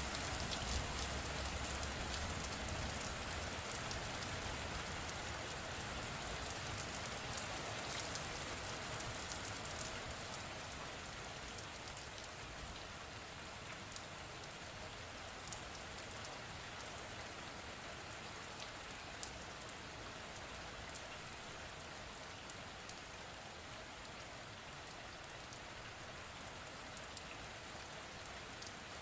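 Steady rain falling, a dense even hiss with scattered sharp drop ticks. A low rumble fades out in the first few seconds, and the rain eases slightly about ten seconds in, then holds steady.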